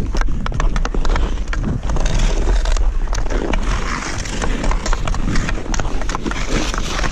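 Hockey skates striding and carving across pond ice while a hockey stick handles the puck: many quick clicks and scrapes over a steady low rumble of wind on the microphone.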